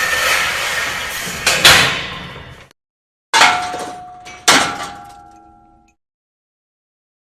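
A metal object scraping along with a grinding sound that ends in a clank about a second and a half in. Then come two separate metal strikes a little over a second apart, each ringing with clear tones that fade out.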